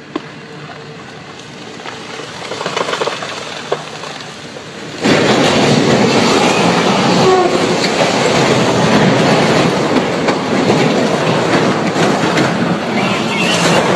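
Double-stack intermodal freight train rolling past, a steady rumble and clickety-clack of wheels on rail. About five seconds in it suddenly becomes much louder and stays loud.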